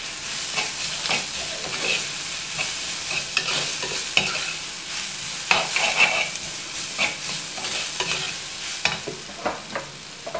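Sliced onions and green chillies sizzling in hot oil in an earthenware pot while a steel spoon stirs them, scraping and knocking against the pot many times over a steady hiss.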